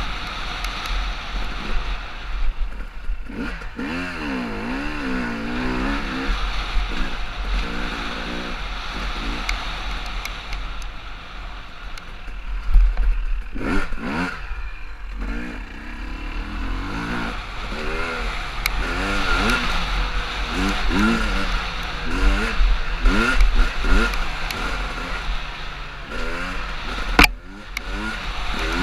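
Dirt bike engine revving, its pitch rising and falling again and again as the throttle is worked, over a steady rush of wind on a helmet-mounted microphone. A single sharp knock near the end.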